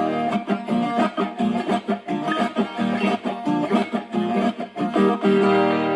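Instrumental close of a sertanejo song after the last sung line: acoustic guitars plucked and strummed in a steady rhythm, with no singing.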